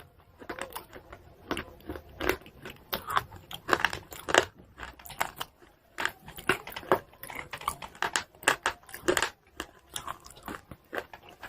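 A person biting and chewing crunchy pieces of chalk close to the microphone: a rapid, irregular run of sharp crunches and crackles.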